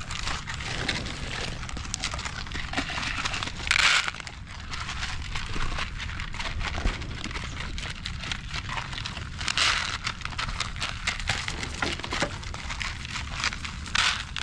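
Dogs crunching dry kibble out of plastic bowls: a steady crackle of chewing and bowl rattle. Louder rattles come about four, nine and a half and fourteen seconds in, as more handfuls of kibble are dropped into the bowls.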